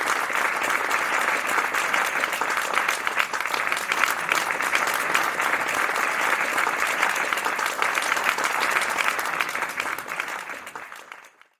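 Audience applauding after a live song, fading out near the end.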